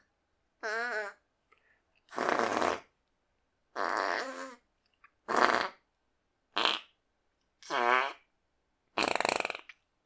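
Home-made fart sound effects: seven short separate farts with silent gaps between them, two of them with a pitch that wobbles up and down.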